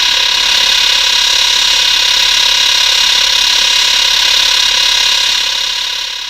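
Monster energy-beam sound effect made to sound electric: a loud, steady buzz with a rapid flutter, fading out near the end.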